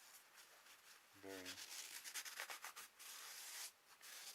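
Faint, irregular scratchy rubbing strokes as debris is wiped away from around a freshly pressed wheel bearing, busiest in the second half with a brief pause near the end.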